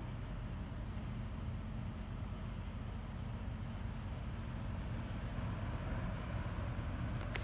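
Crickets chirping in a steady high-pitched trill, with a regular pulsing chirp above it, over a low steady rumble.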